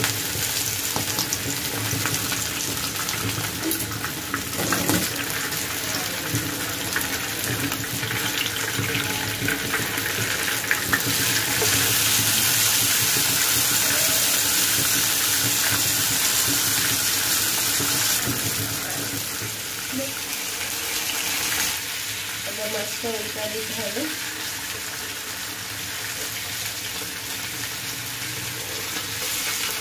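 Pomfret fish frying in hot oil in a nonstick pan: a steady sizzle, louder for several seconds in the middle, with occasional scrapes and clicks of a metal spatula as the fish is turned.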